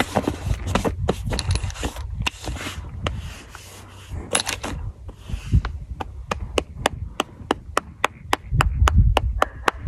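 Rubbing and knocking close to the microphone, then a very even run of sharp clicks, about four a second, through the second half.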